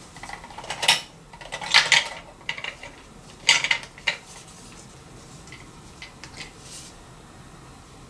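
Plastic Hello Kitty toy candy machine being worked by hand: its knob turned and a piece dispensed through the chute, giving a few sharp plastic clicks and clatters, loudest about two and three and a half seconds in, then lighter ticks.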